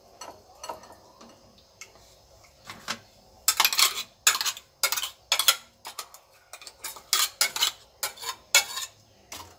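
A metal spoon clinking and scraping against a steel mixer-grinder jar as ground green chutney paste is worked out into a mesh strainer. There are a few faint ticks, then a run of quick, sharp metallic clinks, several a second, from about three and a half seconds in.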